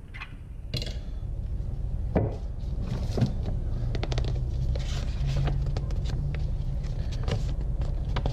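Paper rustling and crackling as a glossy instruction booklet is handled and its pages are turned, with a few sharper handling clicks and a low steady rumble underneath.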